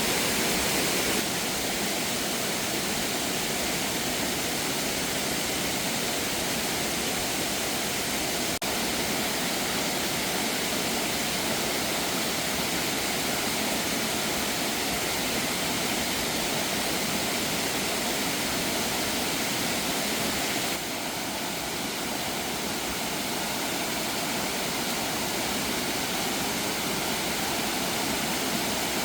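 Steady, full rushing of water, with small shifts in level about a second in, around a third of the way through and about two-thirds through.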